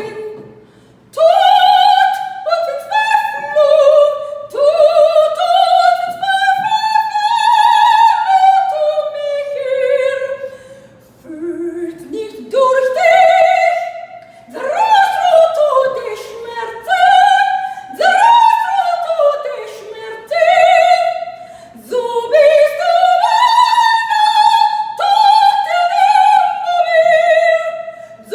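Female soprano singing an operatic aria in long phrases with a wide vibrato, the melody climbing and falling, with short breaks between phrases.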